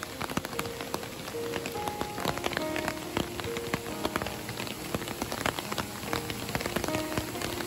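Heavy rain falling steadily on trees and wet ground, with many close drops striking sharply, under soft background music.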